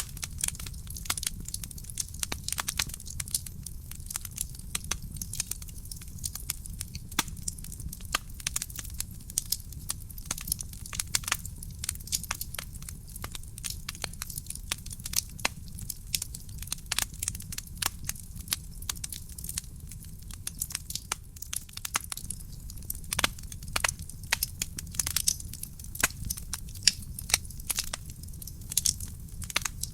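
Wood fire burning in a fireplace: irregular crackles and sharp pops from the burning logs over a steady low rumble of the flames.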